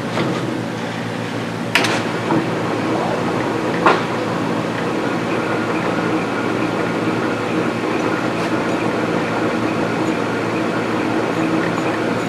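Bench brake lathe running with a steady hum, spinning a heavy-duty truck front brake rotor on its arbor before the cut while the rotor's mounting is checked for runout. Two sharp metallic clicks come in the first four seconds.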